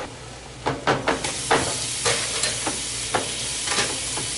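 Diced vegetables frying and sizzling in a nonstick frying pan as a silicone spatula stirs them. The spatula scrapes and taps against the pan several times over the sizzle.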